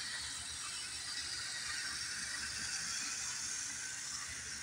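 Model train running along the layout track pulling coal cars: a steady whir and hiss of the locomotive's motor and gears and its wheels rolling on the rails, a little louder as it passes close by.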